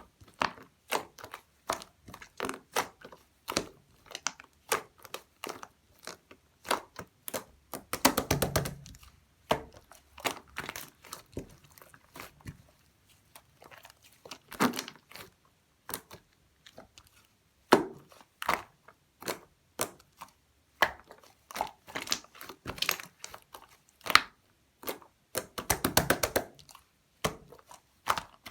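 Slime being squeezed and pressed by hand, making a string of sharp clicks and pops, with two runs of rapid crackling about eight and twenty-six seconds in.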